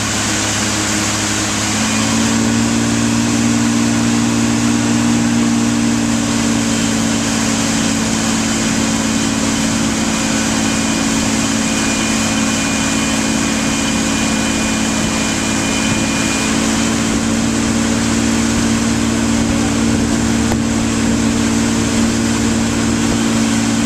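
Motorboat engine running steadily at towing speed. Its pitch and level rise slightly about two seconds in. The rushing of the wake and wind runs underneath.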